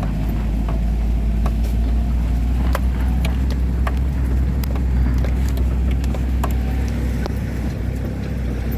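Vehicle driving along a rough back road: a steady low rumble of engine and tyres, with scattered clicks and knocks through it.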